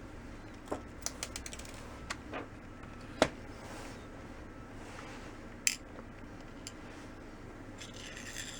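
Scattered small, sharp clicks and taps of lens parts and tools being handled while a Canon EF-S 18-200mm zoom lens is taken apart. The loudest click comes about three seconds in, and a faint rustle follows near the end.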